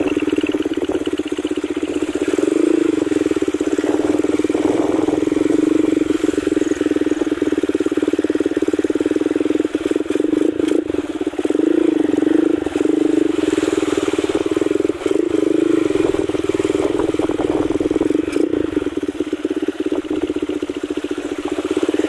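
Motorcycle engine running steadily while riding, its note swelling slightly a few times.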